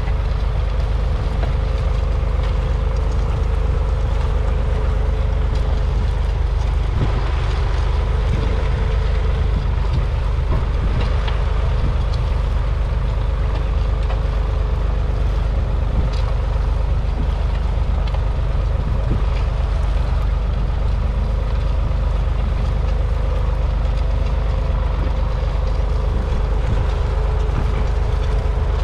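1978 County 4600 Four tractor's 3.3-litre three-cylinder diesel engine running steadily under load as it pulls a two-furrow mounted plough through the soil, a constant low drone.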